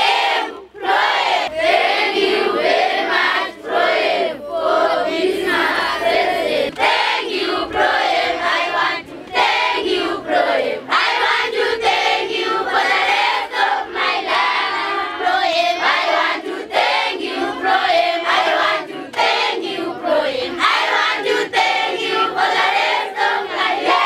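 A large group of children singing and chanting together in unison.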